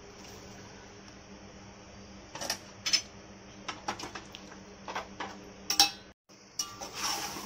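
Steel spatula clinking and scraping against a metal cooking pot as soya chunks are tipped in and stirred: an irregular string of sharp knocks starting about two seconds in, over a low steady hum.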